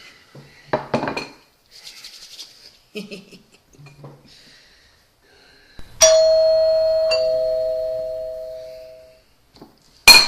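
Doorbell chime ringing once, a two-note ding-dong: a higher note about six seconds in, then a lower note a second later, both fading away over a couple of seconds. A clatter of knocks comes about a second in, and a sharp, loud knock right at the end.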